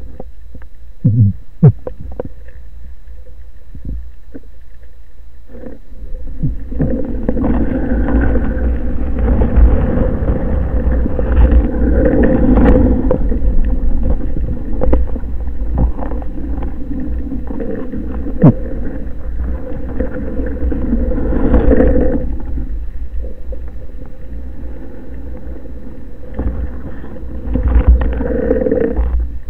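Muffled underwater rumble and rush of water against a speargun-mounted camera's housing as the freediver swims through a heavy swell. There are a few sharp knocks about a second in. The water noise grows louder for a long stretch through the middle and again near the end.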